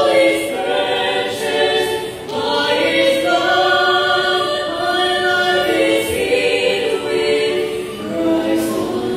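A small vocal ensemble of soprano, alto and tenor singing a Christian worship song in harmony, holding long, sustained notes.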